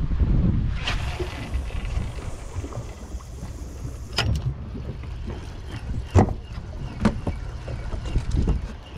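Wind buffeting the microphone over water noise on an open boat at sea, with several sharp knocks and clicks from handling the fishing rod and cranking a spinning reel, the loudest about six seconds in.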